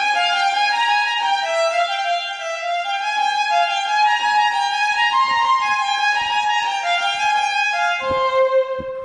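Solo violin played with the bow: a melodic passage of held and moving notes.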